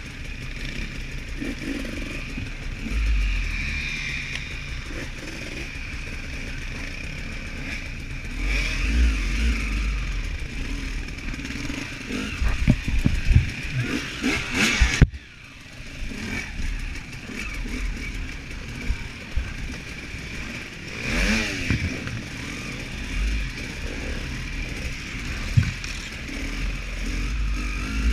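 Husaberg 300 two-stroke enduro motorcycle engine running and revving as the bike is ridden slowly over rough forest ground. About halfway there is a run of clattering knocks, and the sound drops out suddenly for a moment; later the engine revs up once.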